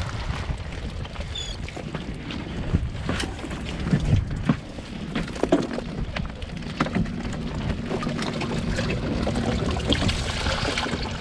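Irregular knocks and clatters on a small boat, with a steady low hum that comes in about halfway through.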